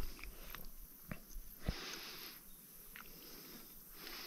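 A man quietly chewing a mouthful of potato and stewed meat, with a few small clicks and a couple of breaths through the nose.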